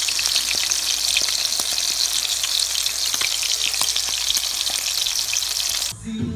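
Small seasoned steaks sizzling and crackling in a hot pan, with a steady loud hiss. The hiss cuts off suddenly near the end.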